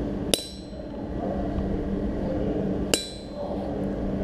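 Two blows of a blacksmith's hammer on the anvil, about two and a half seconds apart, each with a short high metallic ring, over a steady low background hum.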